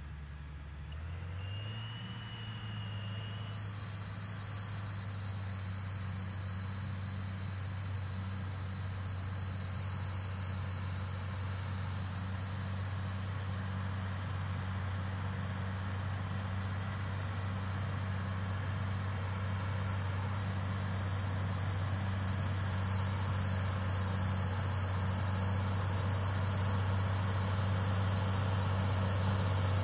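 A vehicle engine running steadily, its low hum stepping up slightly about a second in. A steady high whine joins a few seconds in, and the sound grows slowly louder.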